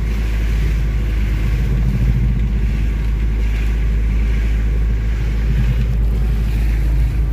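Vehicle engine running steadily at low speed, with a constant low hum and road noise.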